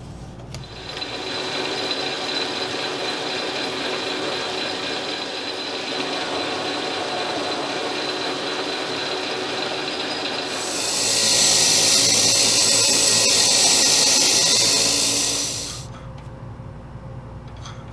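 South Bend metal lathe running steadily while a single-point tool cuts an Acme thread on the tailstock screw. About ten seconds in a loud hissing cutting noise joins the machine's steady running, and both drop away about two seconds before the end.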